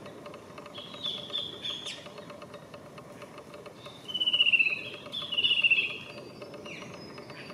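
A bird calling: two loud rapid trills about a second apart, each sliding slightly down in pitch, preceded by a few fainter high chirps, over a steady faint background hum.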